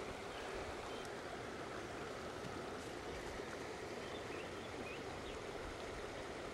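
Steady rush of running water from a creek, an even hiss that holds at one level throughout.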